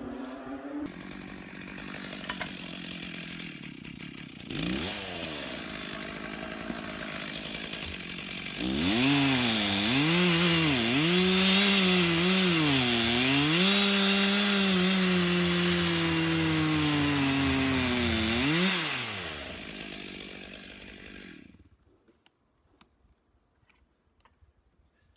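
Stihl chainsaw running at low revs, revving briefly, then at full throttle for about ten seconds while sawing into a huge Douglas fir log, its pitch dipping and recovering several times as the chain loads up in the cut. It then drops back and stops near the end.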